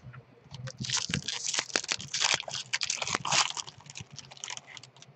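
Foil wrapper of a Topps baseball card pack being torn open and crumpled by hand: a dense run of crinkling and crackling from about a second in, dying away near the end.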